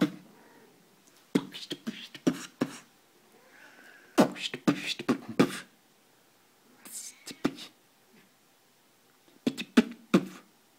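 Human beatboxing: rapid percussive mouth sounds in three short runs separated by pauses.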